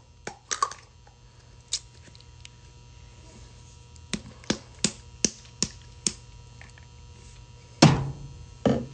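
Light clicks and taps of small objects being handled, with a run of about three clicks a second midway, then two louder thunks near the end, over a faint steady hum.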